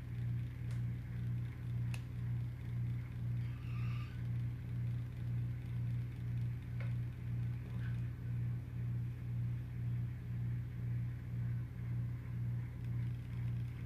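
Small electric motor of a tumbler turner humming steadily, with an even pulse a little under twice a second.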